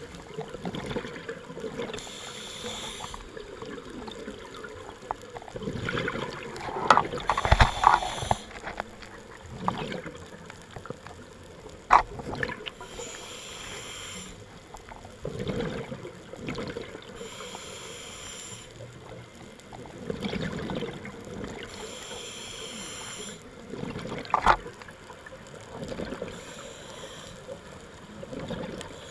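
Scuba diver breathing underwater through a regulator: a burst of exhaled bubbles about every four to five seconds, with quieter inhalations between. Two sharp knocks, about halfway through and again near the end.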